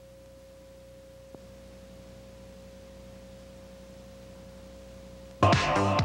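A faint steady pure tone held at one pitch, with a tiny click about a second in. Music with a beat starts abruptly near the end.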